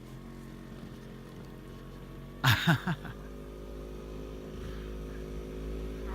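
Vintage two-stroke snowmobile engine running at a steady low speed, growing slowly louder. About two and a half seconds in there are three short, loud bursts.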